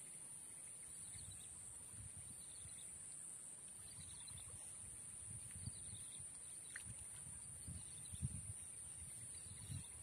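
Faint marsh ambience: a steady high-pitched insect drone with a bird repeating short falling calls every second or two. A few soft low thumps come in the second half.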